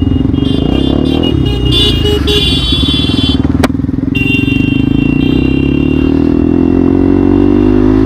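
Motorcycle engine running steadily under way, its note holding nearly level. Short high-pitched tones come and go above it, with one sharp click about three and a half seconds in.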